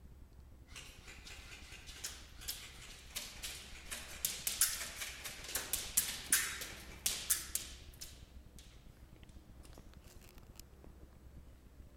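A quick, irregular series of sharp knocks and clicks over rustling. It builds up after about a second, is loudest in the middle, and thins out near the end.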